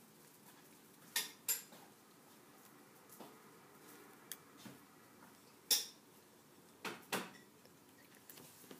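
About six short, sharp clinks and taps as a hard object knocks against a clear plastic cup of water. The loudest comes a little past the middle.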